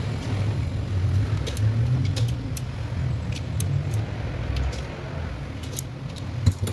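Scattered light metallic clicks of a socket wrench and extension working the rear-cover nuts of a Toyota Vios alternator during disassembly, with a sharper knock near the end. Under them runs a steady low rumble like a vehicle engine running.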